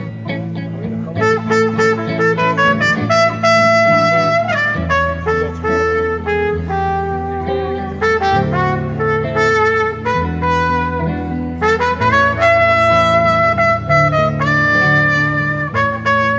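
Live band playing an instrumental break, a trumpet carrying the melody in held notes over electric guitars, a bass line and drums.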